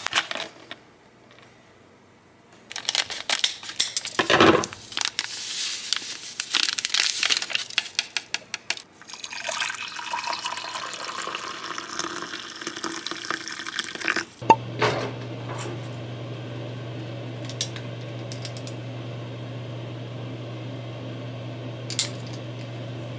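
Kitchen clatter of dishes and utensils, then water running from a tap for several seconds, then a steady low hum with a few light clicks.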